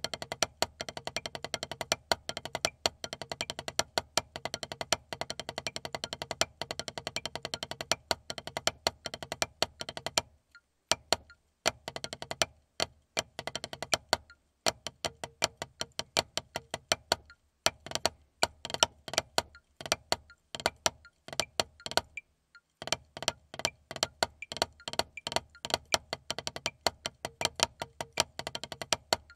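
Wooden drumsticks playing a rudimental snare-drum solo on a Vater practice pad: fast, dry stick strokes and rolls with accents, broken by a few short pauses.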